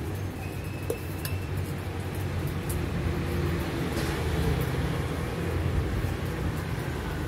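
Steady low rumble of street background noise, like passing traffic, with a few light clicks over it.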